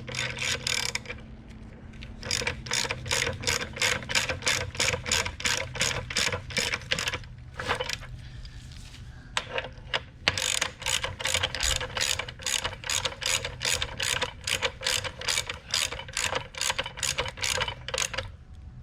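Ratchet wrench clicking in steady strokes, about four clicks a second, as bolts are tightened. The runs of clicks stop briefly about a second in and again for a few seconds near the middle.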